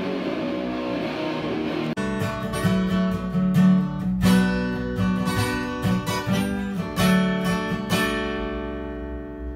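Acoustic guitar strummed and picked in uneven strokes, ending about eight seconds in on a chord left ringing as it slowly fades. It cuts in suddenly about two seconds in, replacing a dense, distorted electric guitar sound.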